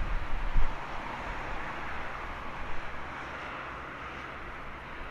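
Distant jet engine noise from an approaching Airbus A320neo's Pratt & Whitney geared turbofans, a steady rushing hiss that builds slightly as the airliner descends on final approach. A gust of wind rumbles on the microphone about half a second in.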